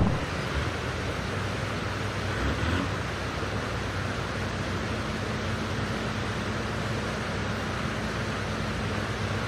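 Steady rushing outdoor noise with the low steady hum of a coach's engine as it crawls across a wooden plank bridge.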